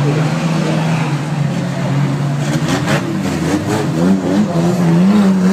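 Several banger racing cars running around the oval, their engine notes overlapping and rising and falling as they rev, with a cluster of sharp knocks about halfway through.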